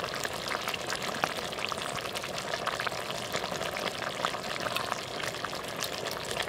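Tamarind curry with fried pappadums boiling in a clay pot: a steady bubbling hiss scattered with many small pops and crackles.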